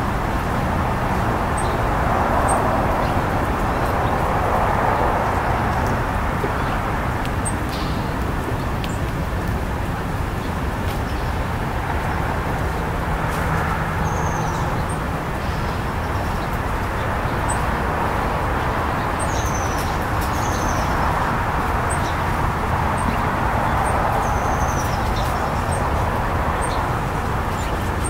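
Steady road traffic noise, swelling several times as cars pass, with short high bird chips and a few brief downward-sliding calls over it.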